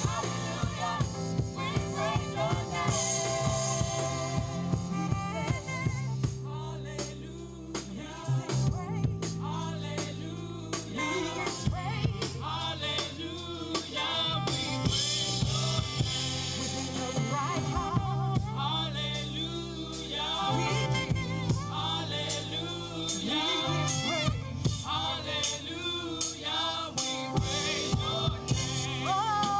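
Live gospel music: a woman sings lead into a microphone, with other women singing along, over a band of drum kit and bass guitar playing a steady beat.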